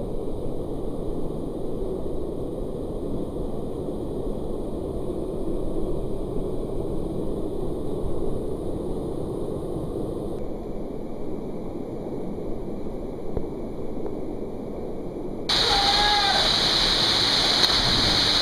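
Rushing creek water in a rocky canyon, at first a low, muffled rush. About three-quarters of the way through it turns suddenly louder and brighter as a small waterfall pours and splashes into the pool close by.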